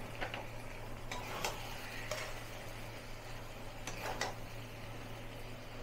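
A spatula scraping and clinking against an aluminium kadhai as cooked eggplant bhujiya is stirred: about half a dozen short, separate strokes.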